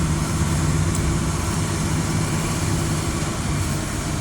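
Heavy truck's diesel engine running steadily at an even pitch.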